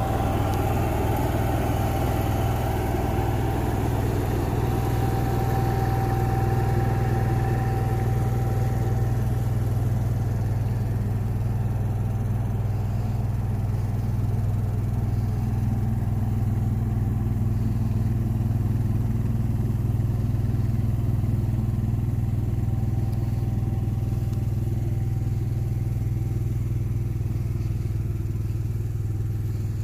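A vehicle engine idling steadily: a constant low hum.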